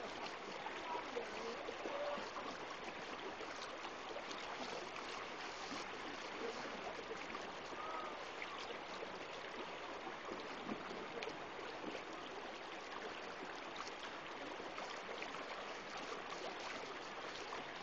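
Shallow river rapids: water rushing steadily over rocks.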